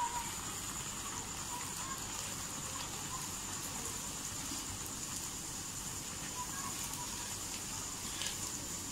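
Aloo pooris deep-frying in hot oil: a steady sizzle with scattered small pops and crackles.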